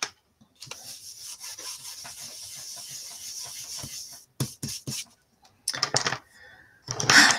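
Ink blending brush rubbed back and forth over paper cardstock in a steady scratchy hiss for about three and a half seconds, followed by a few sharp clicks and a brief louder noise near the end.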